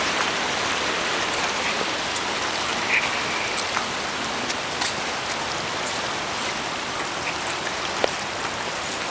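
Steady hiss of rushing water, with a few faint sharp ticks scattered through it.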